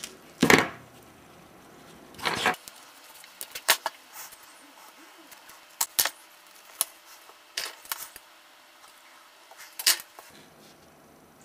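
Metal tweezers and a small circuit board being handled on a tabletop while a resistor is fitted into the board. Two brief scuffs near the start, then a scatter of sharp little clicks and ticks.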